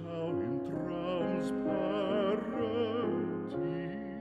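Classical, opera-style background music: a wavering vibrato melody over held chords.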